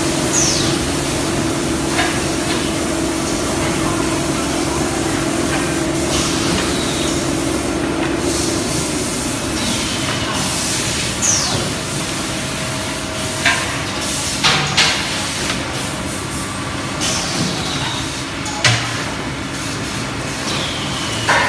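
Cement roof tile press machine running: a steady mechanical hum and hiss, with a short falling swish every few seconds as it cycles. Sharp knocks come in the second half, and the hum drops away about nine seconds in.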